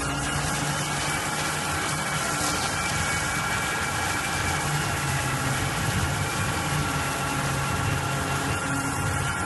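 Foam-milling CNC router running: a steady high spindle whine over continuous machine noise and a low hum that shifts slightly in pitch.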